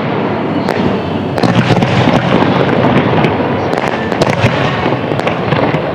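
Fireworks display in full barrage: overlapping booms of bursting shells with many sharp cracks and pops, going on without a pause.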